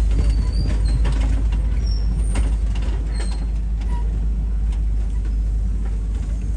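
Open-air safari truck driving along a track: a steady low engine and road rumble, with scattered creaks and rattles from the vehicle's body.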